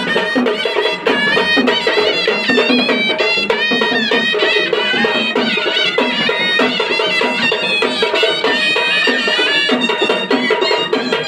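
Traditional vajantri band music, loud: a reedy wind-instrument melody that bends and wavers in pitch over a steady, dense beat of dhol and tasha drums.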